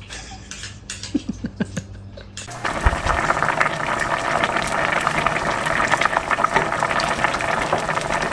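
A few faint small clicks. Then, about two and a half seconds in, a pot of food starts bubbling on the boil, a steady, dense crackle.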